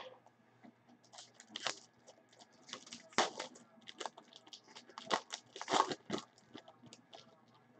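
Trading-card pack wrapper being torn open and crinkled, in a series of short ripping bursts.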